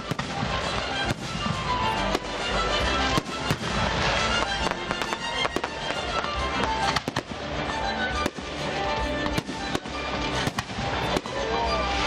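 A 150-shot high-altitude firework cake firing, rapid uneven bangs several a second, over background music.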